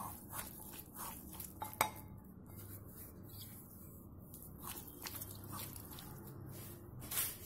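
A hand mixing sliced baby corn with corn flour in a glass bowl: scattered light taps and clinks of fingers and corn pieces against the glass, the sharpest about two seconds in.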